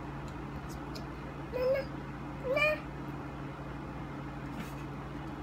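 Two short, rising, meow-like cries about a second apart, over a steady low hum.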